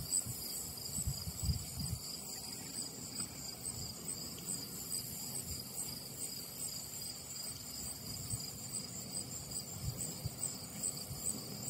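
Insects chirping steadily in the meadow grass, a high pulsing trill that repeats evenly, with irregular low rumbles of wind on the microphone.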